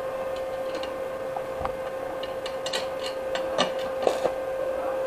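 Stick (arc) welder set-up: a steady hum, with scattered sharp clicks and crackles from about halfway in as the welding rod is touched to the steel to strike an arc.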